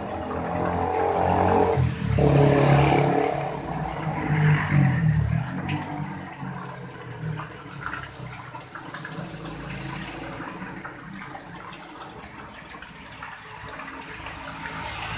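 Small garden pond fountain running, a thin jet of water from a statue splashing into the pond. A louder low sound swells and fades over the first several seconds.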